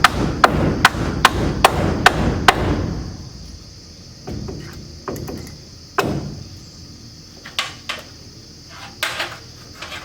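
Hammer driving nails into wooden boards: a fast, even run of about seven strikes, roughly two and a half a second, that stops about two and a half seconds in. A few scattered knocks and taps on the wood follow.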